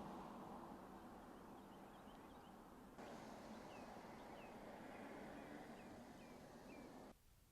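Faint outdoor ambience, a steady hiss, with a bird chirping repeatedly in short falling notes, clearest in the second half. The background hiss shifts abruptly about three seconds in and cuts off shortly before the end.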